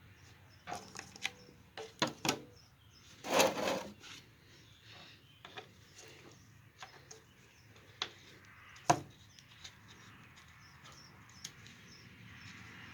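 Scattered clicks, knocks and rubbing from handling the oil bottle, funnel and filler cap while topping up a small engine's oil, with a short rush of noise about three and a half seconds in and a sharp knock near nine seconds.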